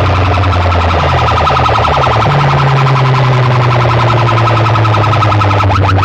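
Electronic siren-style alarm effect blasted at high volume through a DJ competition sound system. It pulses rapidly over a deep bass tone that steps up in pitch about two seconds in. Near the end, fast repeated rising chirps begin.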